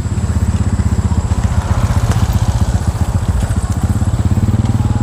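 Motorcycle engine running close by, with a steady, rapidly pulsing exhaust note that grows a little louder in the first second.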